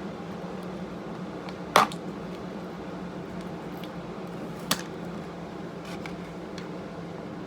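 Electric fan running steadily with a low hum, and two short sharp clicks or knocks, one a couple of seconds in and another about three seconds later.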